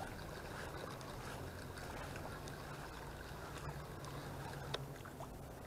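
Spinning reel being cranked to bring in a snagged bunker, a faint steady whir over the soft wash of wind and water, with a small click near the end.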